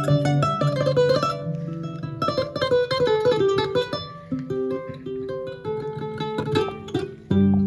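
A plucked string instrument playing a quick melodic line of many short, ringing notes.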